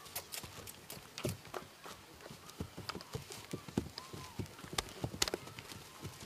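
Hooves of two horses walking on dry, bare dirt: irregular dull clops, several a second.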